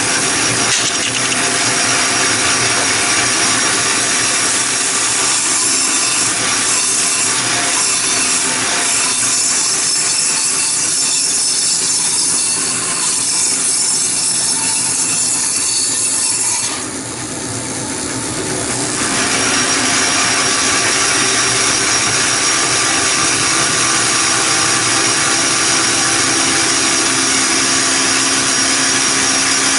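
Band saw cutting hardwood with a freshly hand-sharpened blade: the machine runs steadily with a continuous sawing noise. The cutting noise drops away for about two seconds past the middle, then resumes.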